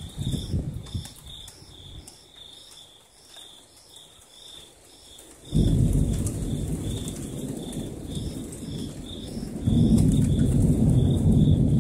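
Thunder during a lightning storm: low rumbling at first, then a sudden loud low rumble about five and a half seconds in that swells again near the end. Insects chirp steadily throughout, a couple of pulses a second.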